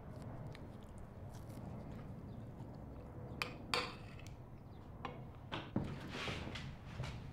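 Quiet room with a handful of soft clicks and knocks, the sounds of someone eating at a table. A brief rustle comes near the end as he gets up.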